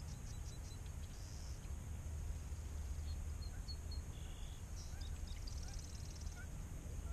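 Steady low wind rumble on the microphone, with faint, scattered high chirps and a short buzzy trill from small birds in the marsh.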